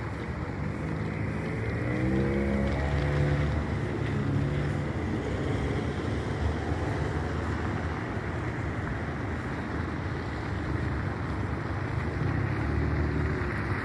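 A motor vehicle's engine running over a steady rush of noise. It revs up with a rising pitch about a second in, holds, and rises again near the end.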